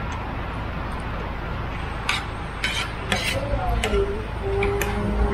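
Spoon and fork clinking and scraping against a plate and bowl while eating: several light, separate clinks over a steady background hiss.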